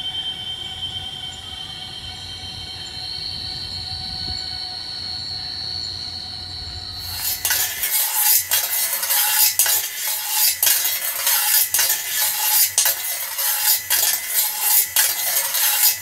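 A steady drone of several held tones over a low rumble, then about seven seconds in a sudden switch to louder, rapid metallic scraping and rattling. The rattling is a worn knife blade, spun on a spring by a small 6V motor, scraping and striking a battered metal tray.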